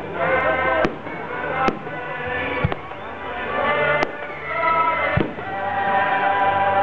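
Aerial fireworks going off, five sharp bangs spaced about a second apart, over continuous music with long held notes.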